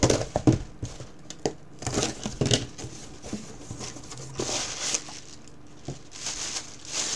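Utility knife slitting the packing tape on a small cardboard box, with sharp clicks and scrapes as the cardboard flaps are worked open. Wrapping paper then rustles in bursts as it is pulled out of the box, near the end.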